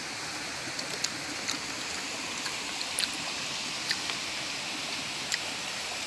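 A small forest stream running: a steady rush of water, with a few short, sharp ticks over it.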